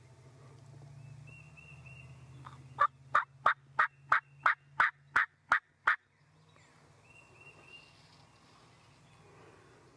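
A run of about ten loud turkey yelps, about three a second, stopping abruptly after three seconds. Faint small-bird chirps come just before them.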